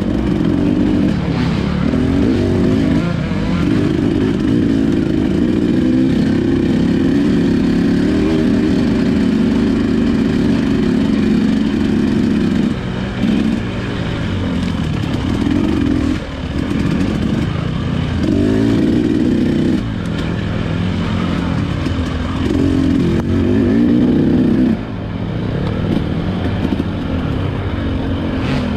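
Dirt bike engine running in third gear, the throttle rolled on and eased off again and again, so the engine note swells and dips several times.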